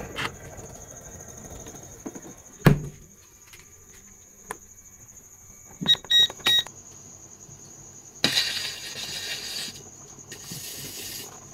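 Digital timer on a bakery deck oven beeping three short times in quick succession as its buttons are pressed, about six seconds in. Earlier there is a single thud, and near the end two stretches of scraping noise, over a faint steady high whine.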